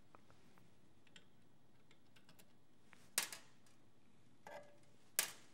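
Small clicks and taps of a metal tool working among the parts inside a molded plastic circuit-breaker housing, with two sharper clicks about three and five seconds in.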